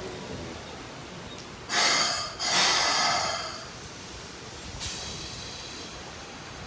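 Compressed air venting from a Keikyu train's pneumatic system: two loud hisses about two seconds in, the second longer and fading, then a fainter hiss near five seconds.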